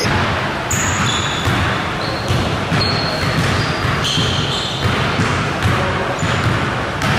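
Basketball being dribbled on a hardwood gym floor, repeated bounces, with short high sneaker squeaks from players moving on the court.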